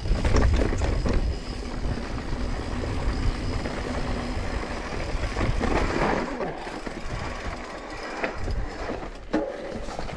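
Mountain bike rolling down rocky dirt singletrack: tyres crunching over rock and gravel, with the bike rattling over the bumps and a low wind rumble on the microphone. The rumble drops off about six seconds in.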